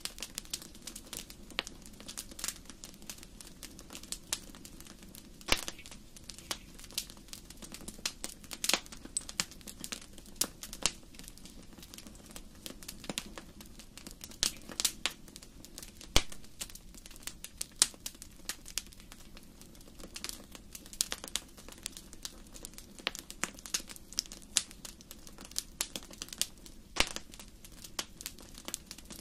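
Wood fire burning in a fireplace, crackling steadily with sharp irregular pops and snaps over a soft low rumble of the flames.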